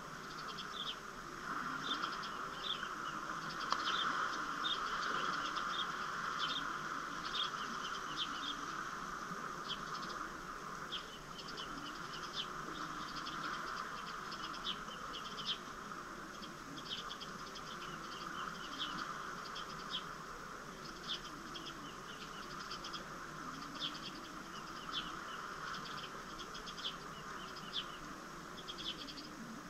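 Insects buzzing steadily, with short high chirps repeating irregularly on top.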